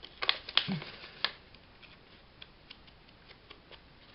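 A small hand tool tapping and rubbing on a kraft paper coin envelope: a few sharp taps in the first second or so, then faint, irregular light ticks.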